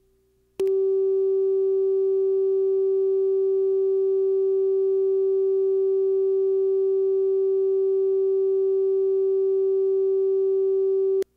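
Steady electronic test tone, one unbroken mid-range pitch, switching on abruptly about half a second in and cutting off sharply near the end: a TV station's tone run under a commercial-insert slate, marking the slot for a local commercial.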